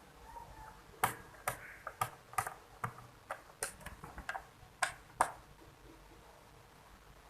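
A dozen or so sharp, small clicks, irregularly spaced a few to the second, between about one and five seconds in. They come from work on the underside of a Lenovo IdeaPad 330 laptop as its bottom-cover screws are taken out.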